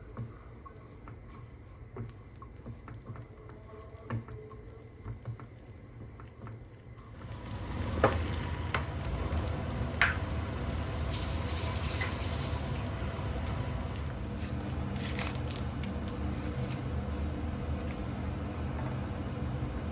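Quiet small clicks of handling, then about seven seconds in a tap is opened and water runs steadily into a sink, with a couple of sharp knocks soon after it starts.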